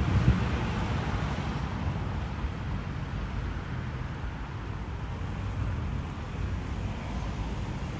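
Street traffic: a steady wash of car and road noise with a low engine rumble, loudest in the first second or so and easing off midway.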